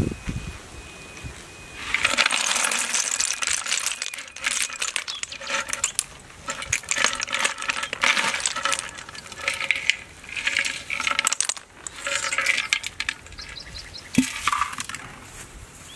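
Boiled snail shells clattering and clicking against each other as they are tipped out of a pot into a woven basket, in a series of bursts starting about two seconds in.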